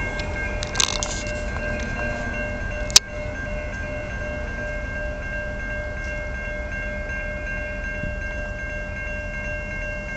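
Autorack freight train rolling away over the rails with a low rumble, under the steady ringing of a grade-crossing warning bell. A single sharp click comes about three seconds in.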